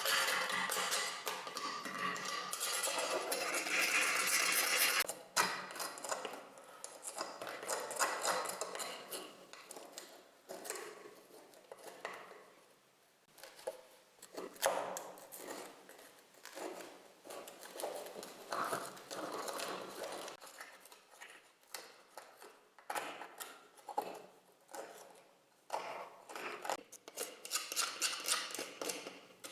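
Rusty steel pump pliers handled and worked on: irregular metallic clicks, taps and scraping. A louder, denser stretch of noise fills the first five seconds and cuts off suddenly.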